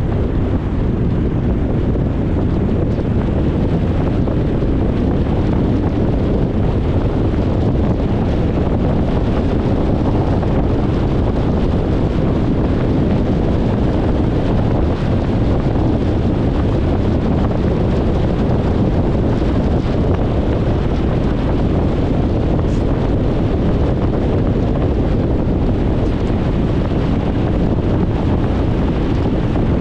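Steady road noise of a car driving: a continuous hiss of tyres and wind, heaviest in the low end, with no breaks or changes.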